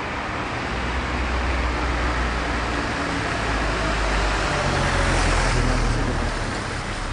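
Steady rumble of traffic noise, building to a peak about five seconds in and then easing off.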